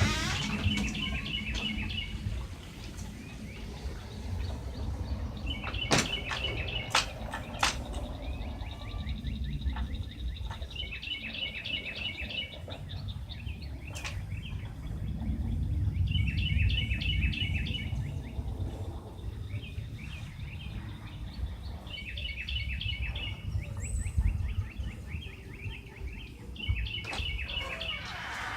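A small bird singing a short, rapid trill, repeated about every five seconds, over a steady low rumble. A few sharp clicks come about six to seven seconds in and again at about fourteen seconds.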